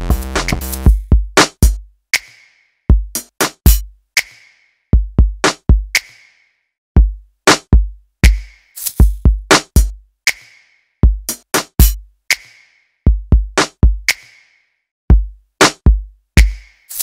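Background electronic music. The fuller track drops out about a second in and leaves only drum-machine hits: deep kick drums and sharp snare-like hits, with short gaps between them. The full track comes back at the very end.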